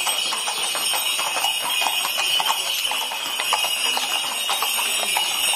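Hooves of several walking horses clip-clopping on a paved street, in a steady, uneven patter of strikes.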